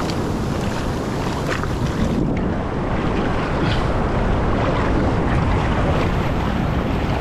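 Ocean surf washing and foaming around a boat's hull in shallow water, with wind buffeting the microphone.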